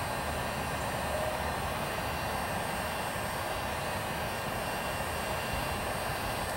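Handheld electric heat gun running, its fan blowing hot air in a steady, even whoosh.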